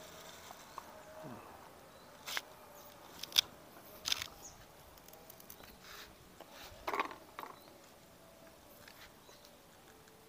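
Scattered light clicks and knocks of hand tools and metal parts as a new cam chain tensioner is fitted and bolted onto a Yamaha Mio M3 125 scooter engine. The loudest click comes about three and a half seconds in.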